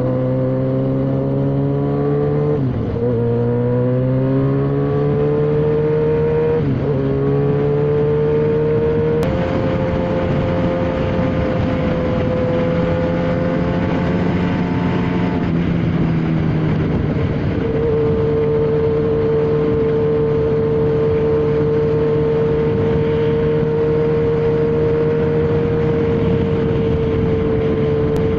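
Motorcycle engine under way with revs climbing, broken by two gear changes in the first seven seconds or so. The revs then hold, ease off a little past the middle, and settle into a steady cruise.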